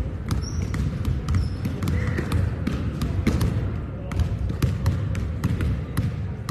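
Volleyballs being hit and bouncing on a hardwood gym floor during warm-up: many irregular sharp slaps and thuds that echo in the gym. There are a couple of short squeaks near the start.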